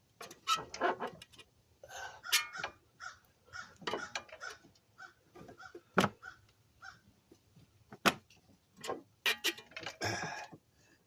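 Irregular metal clinks, knocks and scrapes as a replacement CV axle's splined end is twisted and pushed into the transmission opening.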